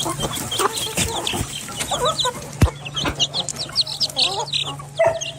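Birds chirping: many quick high chirps in close succession, with a few lower calls mixed in, over a steady low hum.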